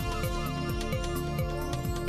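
Electronic background music with a steady beat, held synth tones and a repeated falling bass note.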